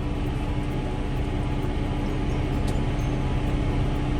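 Farm tractor engine running steadily at idle, an even low drone with a constant hum.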